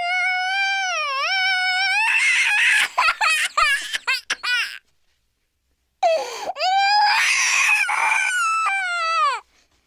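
Crying sound effect: a high-pitched wail that breaks into quick, gulping sobs, then stops for about a second and starts again with another long wail and sobs.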